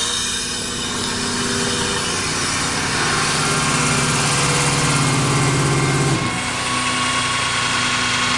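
IMT CAS40P truck-mounted air compressor running steadily, just switched on. A deeper tone builds from about three seconds in and drops away suddenly after about six seconds, leaving the steady running sound.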